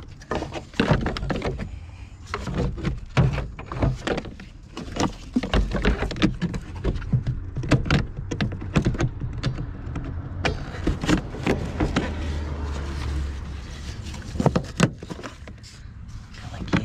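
Irregular clicks, knocks and rattles of plastic trim pieces and parts being handled and fitted back into place in a car's engine bay, over a low rumble.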